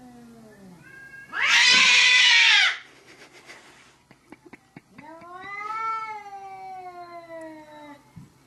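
Two cats in a standoff yowling at each other through a glass door. A drawn-out wavering caterwaul fades out, a loud harsh screech follows about a second and a half in, and then a second long, low yowl rises and falls.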